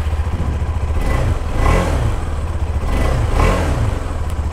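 KTM 390 Adventure's single-cylinder engine idling and revved twice by throttle blips, about two seconds apart, each rising and falling back to idle.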